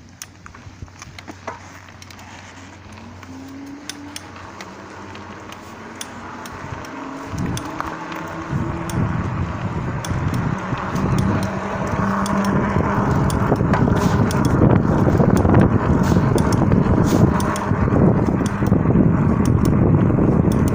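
Lankeleisi MG600 Plus electric bike being ridden, its crankset clicking repeatedly and irregularly while a motor whine rises and the rolling and wind noise grow louder as it speeds up. The clicking comes from dry crank and pedal bearings and went away once they were lubricated.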